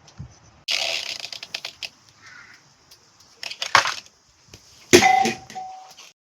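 Wood and metal parts of a homemade catapult being handled: a rattling burst of clicks about a second in, scattered knocks, then a sharp metallic clank about five seconds in that rings briefly.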